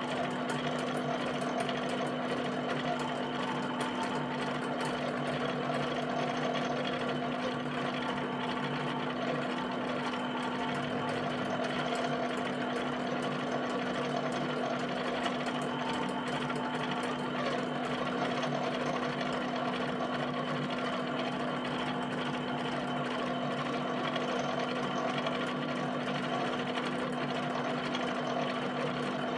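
HP 7585B pen plotter drawing dots: a fast, continuous pecking of the pen dropping onto and lifting off the paper for each dot, over a steady hum.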